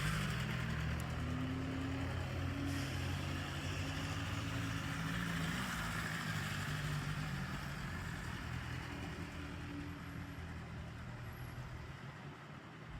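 A vehicle engine running steadily at low revs, slowly getting quieter.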